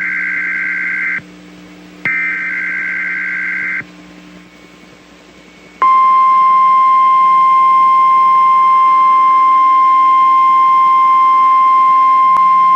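NOAA Weather Radio emergency signal: the end of one burst of shrill warbling digital SAME header data, then one more burst of about two seconds. After a short pause, the steady 1050 Hz warning alarm tone comes on sharply about six seconds in and holds unchanged. This tone is what switches weather-alert receivers on.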